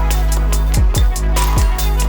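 Electronic background music with a steady beat: a deep kick drum that drops in pitch on each hit, over held bass and synth tones.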